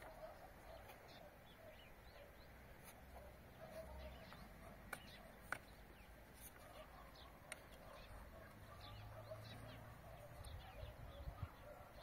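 Faint outdoor ambience with distant birds chirping now and then, and a few light clicks.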